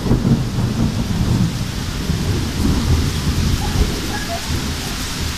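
Thunder rumbling on for several seconds, loudest about the first second, over the steady hiss of rain.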